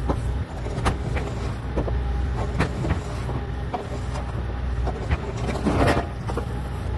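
Bobcat E40 compact excavator's diesel engine running steadily, with repeated sharp clanks and knocks of the machine at work digging soil and rock, the loudest clatter about six seconds in.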